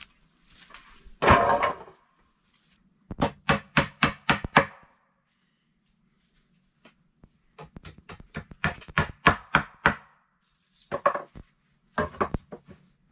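An armful of split wooden slats dropped in a clattering heap, then runs of quick, sharp wood-on-wood knocks, about five a second, as slats are handled and set onto a log bed frame.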